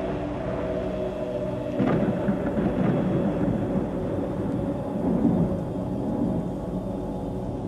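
A thunder rumble breaks in suddenly about two seconds in over a low, steady ambient music drone. It rolls on and swells again about five seconds in before easing off.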